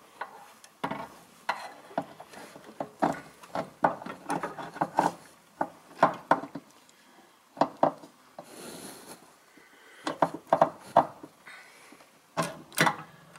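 Irregular light knocks, clicks and scrapes as a brake master cylinder with its plastic reservoir and bleed tubes is worked into place against the brake booster, with a brief rustle about two-thirds of the way through.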